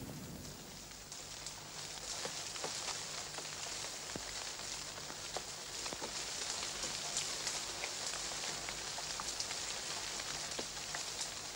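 Steady high hiss sprinkled with scattered faint ticks, over a faint low hum.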